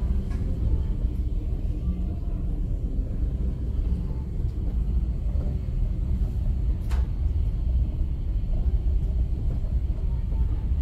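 Steady low rumble of a car rolling slowly over a paved driveway, heard from inside the cabin, with one light click about seven seconds in.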